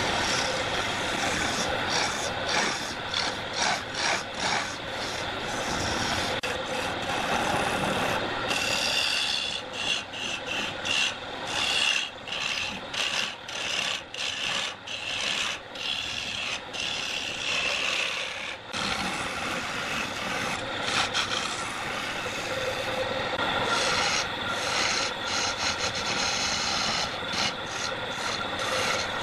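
Wood lathe turning a large layered wooden blank while a hand-held turning tool cuts into it: a continuous rasping scrape, broken by many short gaps as the tool comes off the wood. A higher ringing tone runs through the middle stretch.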